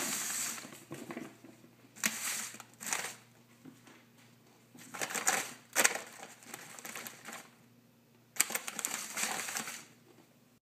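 An IKEA bag rustling and crinkling as a ferret plays in it, in four irregular bursts with quiet pauses between them.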